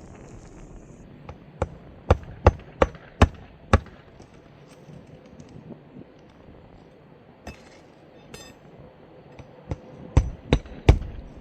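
Hand hammer driving roofing nails through a shingle: a light tap, then five quick blows about three a second, and after a pause a few more blows near the end.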